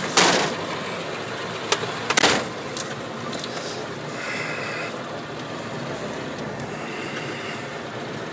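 Vehicle driving on a rough dirt track, heard from inside the cab: steady engine and tyre noise, with two sharp knocks, the loudest sounds, right at the start and about two seconds in, and a few smaller clicks.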